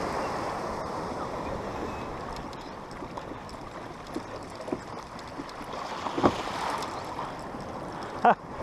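Steady rush and gurgle of seawater along the hull of a moving Hobie Revo pedal kayak out in small swell, with a couple of short bumps about six and eight seconds in.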